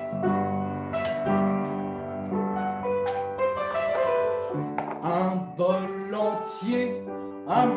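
Piano accompaniment of a song played between sung lines, with a voice singing along over it in the second half.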